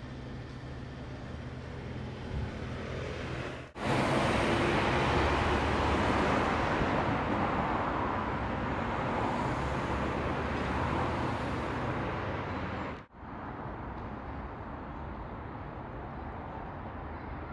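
Outdoor street ambience with a low steady hum, then, after a sudden cut about four seconds in, louder road traffic: cars and a concrete mixer truck driving past, a steady noise of engines and tyres. Near the end it cuts abruptly to quieter outdoor ambience.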